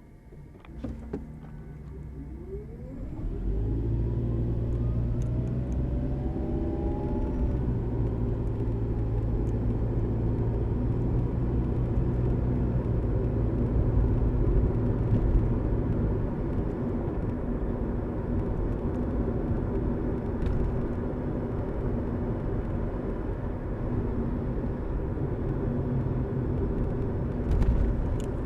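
Hybrid car pulling away and driving. A rising electric whine comes in the first few seconds, then about three and a half seconds in it turns into a steady low drone. There are a few clicks near the start and a short knock near the end.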